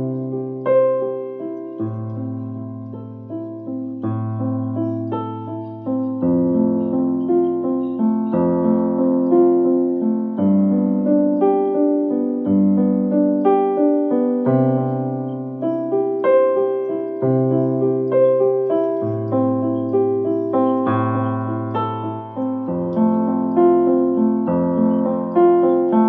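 Instrumental piano music: slow struck chords over a low bass note that changes about every two seconds.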